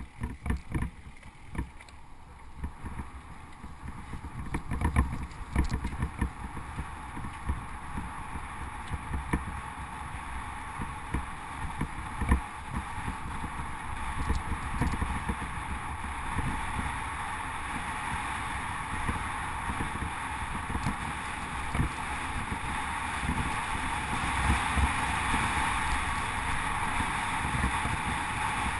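Wind rushing past a moving mountain bike, with the tyres rumbling over a rough dirt track and many short knocks and rattles from bumps. The rushing grows louder in the second half as the bike picks up speed.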